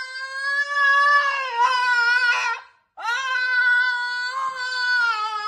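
A dog howling: two long, drawn-out howls, the first ending about two and a half seconds in and the second starting just after, wavering in pitch toward its end.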